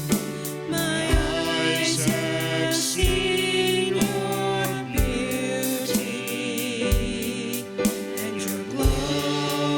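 Gospel-style worship music: several voices singing with a band, with a drum beat thumping about once a second.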